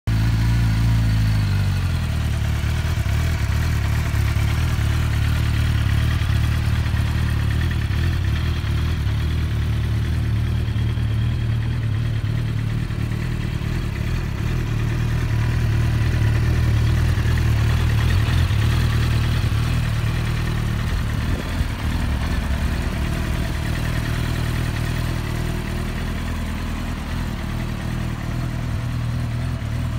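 Suzuki GSX-R 750 K7's inline-four engine idling steadily, the revs falling back to a steady idle within the first two seconds.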